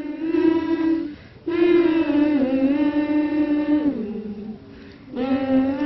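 A single voice singing long, drawn-out notes without accompaniment, in three phrases with short breaks between them; the notes slide down in pitch.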